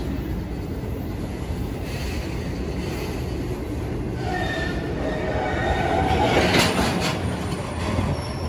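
Norfolk Southern welded-rail train's loaded flatcars rolling past with a steady rumble of steel wheels on rail. Wheel squeal joins about halfway, and the loudest moment, a short clatter, comes about two-thirds through.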